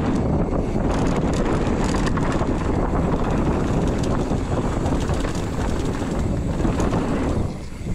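Mountain bike rolling fast down a dirt trail: wind buffeting the microphone and tyre rumble, with frequent rattling clicks from the bike over the bumps. The noise drops briefly near the end.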